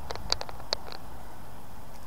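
Low wind rumble on the microphone, with a handful of short, sharp ticks in the first second.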